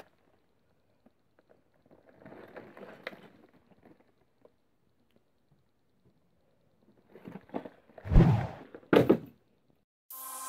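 A cardboard LEGO set box being handled and turned over: faint rustling around two to three seconds in, then louder handling noise with two thumps about eight and nine seconds in, the first the loudest. Electronic intro music starts near the end.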